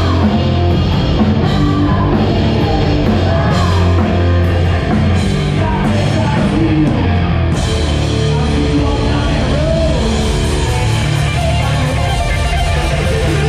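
Live rock band playing loud, with electric guitar, drums and a singer.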